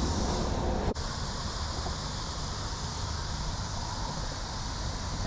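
Steady outdoor background noise: an even hiss over a low rumble, with a brief break about a second in.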